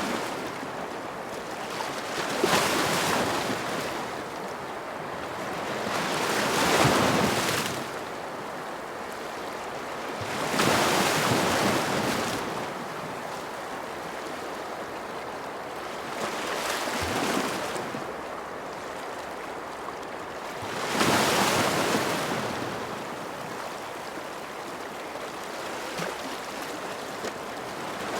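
Ocean waves washing ashore, a steady surf hiss that swells with each breaking wave every four to five seconds and eases back between them.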